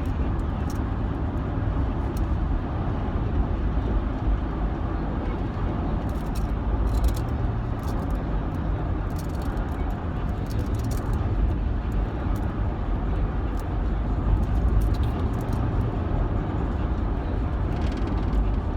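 Steady road and engine noise inside a moving car's cabin, with scattered sharp clicks in small clusters of magnetic balls snapping together in the hands.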